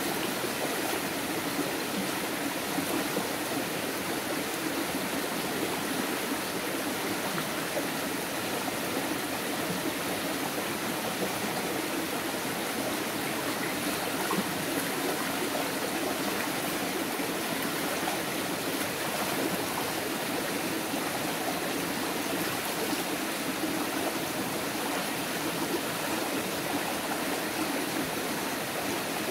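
Shallow rocky forest stream running steadily over stones.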